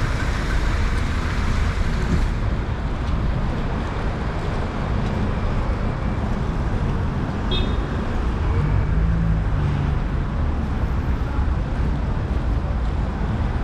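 Steady city street traffic noise, a continuous rumble of vehicles. There is a brief high chirp about seven and a half seconds in and a short low hum a second later.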